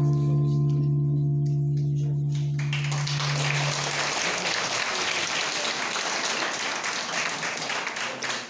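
A held musical chord dies away, and about two and a half seconds in audience applause breaks out, with many hands clapping, then begins to thin near the end.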